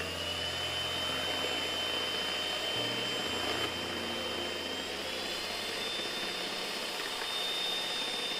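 Panasonic electric hand mixer running steadily, its beaters whisking egg whites into a froth: a constant motor whine over a whirring hiss, the whine's pitch stepping slightly higher about halfway through.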